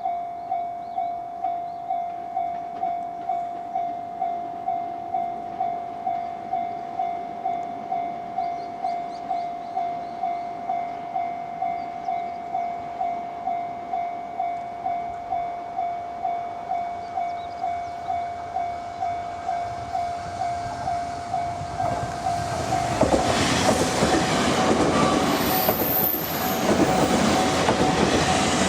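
Japanese level-crossing warning bell ringing steadily, about two strikes a second. About 22 seconds in, a JR 383 series limited express electric train reaches the crossing and passes it loudly, with wheel clatter over the rails, while the bell rings on underneath.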